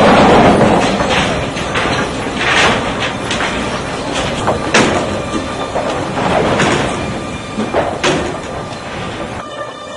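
Sawmill lumber conveyor and lugged chain transfer running, a steady loud mechanical rattle and clatter with several sharp knocks as boards are moved along.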